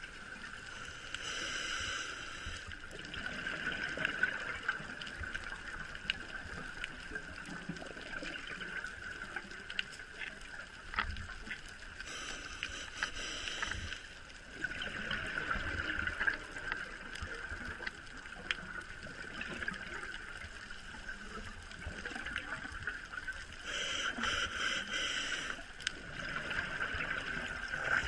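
Scuba diver's breathing heard through an underwater camera: the hiss of the regulator and the gurgle of exhaled bubbles, coming in louder spells every several seconds.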